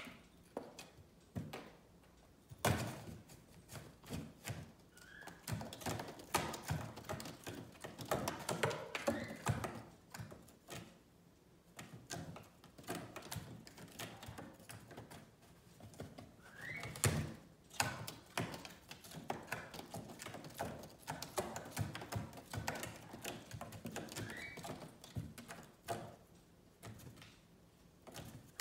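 A cat batting and scrabbling at a cardboard box and its loose flaps: an uneven run of taps, scratches and thumps on cardboard, with a few short rising squeaks now and then.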